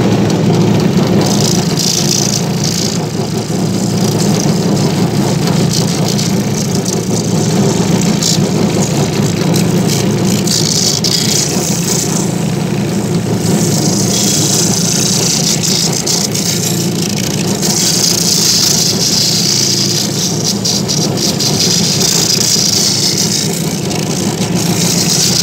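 Shoe finishing machine's motor running loudly, its sanding wheel grinding against a boot's rubber sole to strip off the old glue. A steady low hum runs throughout, and a grinding hiss swells in stretches each time the sole is pressed to the wheel.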